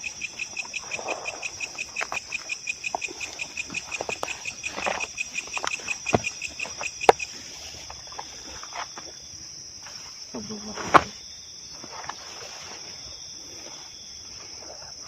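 Insects chirring: a steady high-pitched drone with a fast pulsing trill over it that stops about seven seconds in. Scattered sharp clicks and a brief voice-like sound come near the eleven-second mark.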